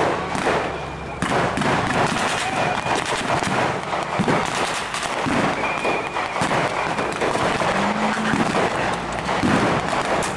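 Small-arms blank fire crackling in a dense battle exchange, many shots overlapping throughout with no break.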